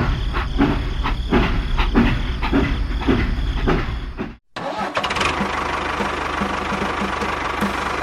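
A small engine running with a regular chugging beat, which cuts off abruptly about halfway through and gives way to a steadier mechanical running hum.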